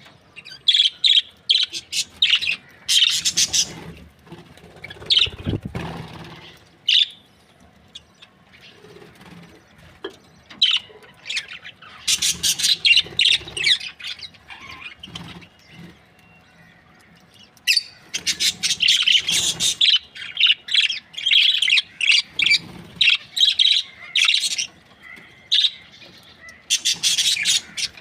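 Budgerigars chirping and chattering in bursts of quick, high chirps, with quieter spells between the bursts.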